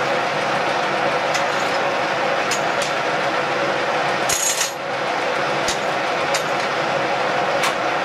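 Cincinnati No. 2 milling machine running steadily, its three-phase motor driven from a VFD, with a gear hum carrying several steady tones. A few sharp metallic clicks come through it, and a short hiss about four and a half seconds in.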